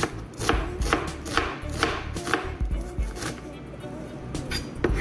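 Chef's knife chopping red onion on a plastic cutting board, about two knocks a second, with a short pause before a last couple of cuts near the end.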